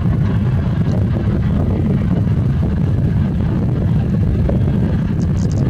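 Airbus A320neo jet airliner's engines at taxi idle: a steady low rumble.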